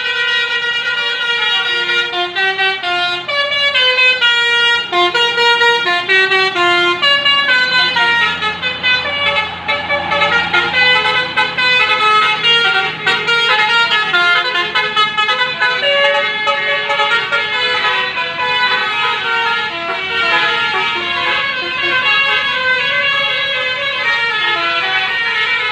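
Telolet bus horn, a multi-tone air horn, playing a long melodic tune in quick stepped notes, with a low rumble swelling beneath it around the middle.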